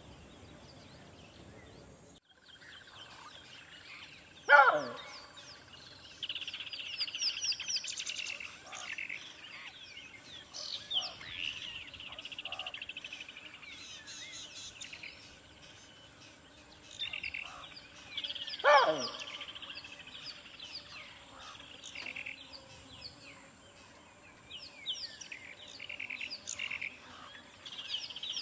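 Forest birds chirping and trilling continuously, with two loud calls that fall steeply in pitch, about 4.5 seconds in and again near 19 seconds.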